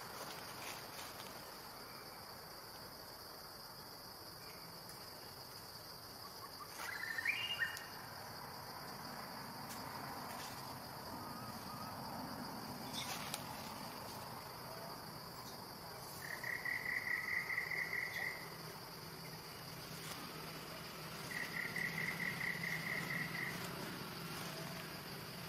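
Forest insects: a steady high-pitched drone, joined in the second half by two rapid pulsed trills about two seconds each. A short high chirp sounds about a quarter of the way in.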